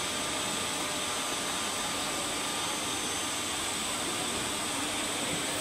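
CNC PVC profile bending machine running: a steady blowing hiss with a faint hum underneath as the profile is drawn around the bending rollers.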